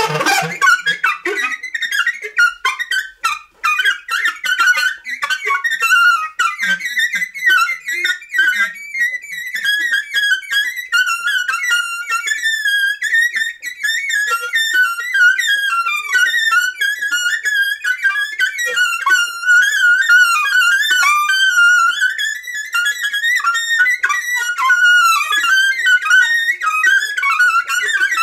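Free-improvised electroacoustic jazz: a high, fast-warbling line that shifts restlessly in pitch, with a scatter of clicks through the first several seconds.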